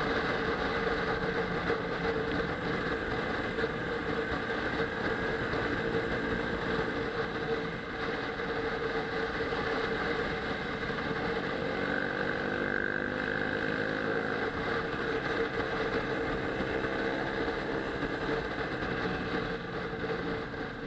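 Kawasaki ER-6n parallel-twin engine running under way, mixed with wind rush on a helmet-mounted camera. The engine's pitch rises and falls about halfway through as the revs change.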